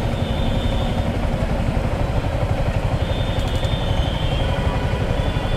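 Yamaha R15M motorcycle's single-cylinder engine running at a steady pace while riding, under a dense, even low rumble.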